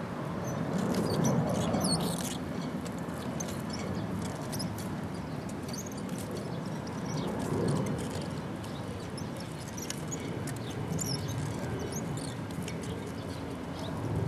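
Many short high bird calls, typical of a feeding flock of seagulls, scattered over a steady low rumble that swells about a second in and again near eight seconds.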